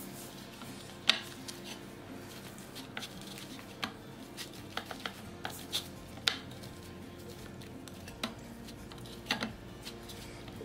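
Hands rolling a sticky date-and-nut mixture into a log on a ceramic plate: scattered light clicks and knocks of fingers and rings against the plate, the sharpest about a second in, around six seconds and near nine seconds.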